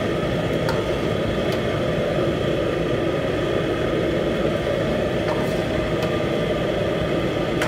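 Steady roar of a commercial kitchen's gas wok burner running on high under a simmering sauce, with a few faint scrapes of a steel ladle against the wok.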